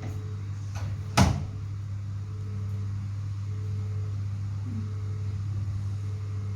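Building fire alarm sounding its alert tone: a faint steady beep repeating about once a second over a steady low hum. A single sharp knock comes about a second in.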